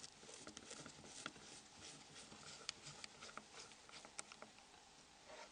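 Near silence: faint hiss with a scattering of small, faint clicks.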